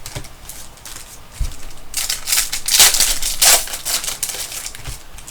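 Crinkling and rustling of foil trading-card pack wrappers being handled and torn open, in irregular crackly bursts that get busier about two seconds in, with a couple of soft thumps.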